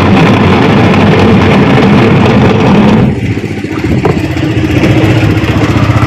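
Labamatic 6.5 kg washing machine switched on and running with a loud, steady, dense mechanical noise that dips briefly a little past halfway. The machine is noisy and turns slowly, a fault the technician traces to its gearbox.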